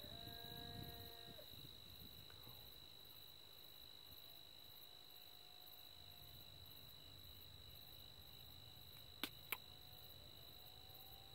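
Faint, steady high-pitched insect buzzing, likely crickets, with two sharp clicks close together about nine seconds in.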